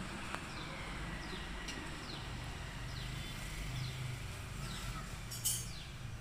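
A bird calling in the background, a short falling chirp repeated about once a second, over a low steady hum. A single light click comes about a third of a second in.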